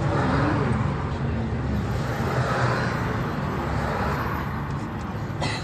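Scania OmniLink city bus driving, heard from inside the passenger cabin: steady engine hum and road noise. A short click comes near the end.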